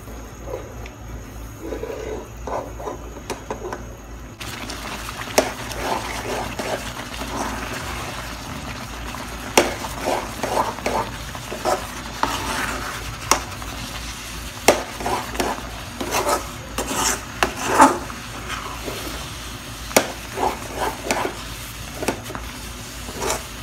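A spatula stirring thick rava kichadi (semolina with vegetables) in a pan, with frequent sharp scrapes and knocks against the pan over a sizzle from the cooking mixture. The scrapes become more frequent after about four seconds.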